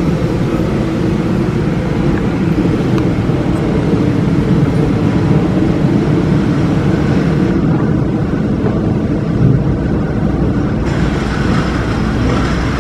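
Steady rumble of a car in motion: road and engine noise, loud and unchanging.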